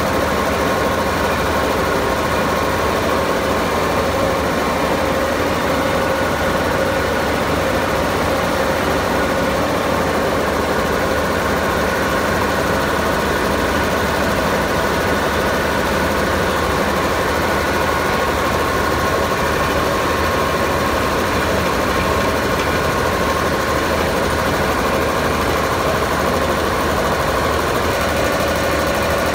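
Kirloskar KCX3 reciprocating ammonia refrigeration compressor running steadily on its V-belt drive: an even, unbroken machine noise with a few steady tones through it.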